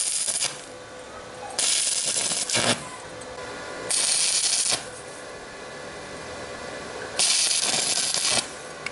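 Arc welding on steel: the crackling hiss of the electric arc in short welds about a second each. One weld stops about half a second in, and three more follow, starting at about one and a half, four and seven seconds.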